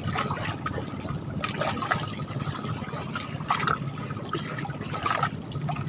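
Water trickling and splashing around a wet cast net being handled in shallow water, with short splashes every second or so.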